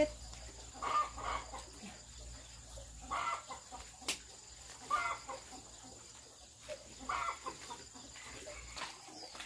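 Chickens clucking: four short calls about two seconds apart, with one sharp click a little past the middle.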